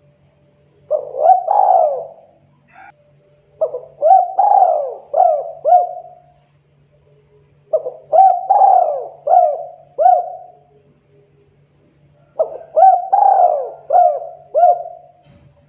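Spotted dove cooing: four phrases of three to five rolling coos each, a few seconds apart.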